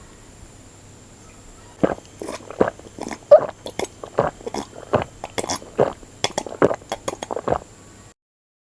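Close-up swallowing and gulping of a drink, a quick string of wet gulps and mouth clicks a few per second. It starts about two seconds in and cuts off abruptly near the end.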